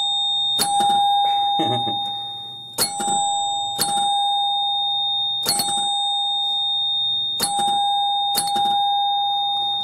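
Gottlieb pinball machine's solenoid chime unit ringing: a plunger strikes the same chime six times at uneven intervals. Each strike rings on as a steady bell tone until the next one. The chimes are working again. A duller knock comes between the first two strikes.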